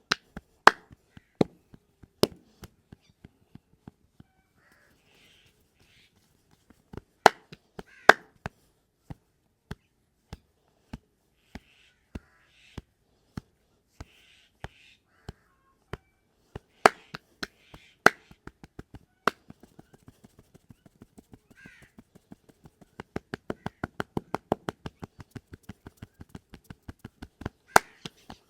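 Sharp hand slaps and chopping strikes of a head, back and neck massage, landing irregularly with a few much louder smacks. Near the end comes a quick run of lighter strikes, about five a second.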